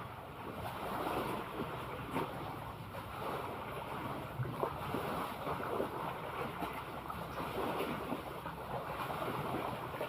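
Sea waves washing steadily, with small splashes crackling through the wash, and wind on the microphone.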